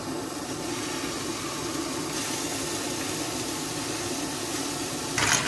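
Steady hissing of a two-burner propane camp stove burning under a frying pan and a pot. About five seconds in, the noise turns louder and brighter.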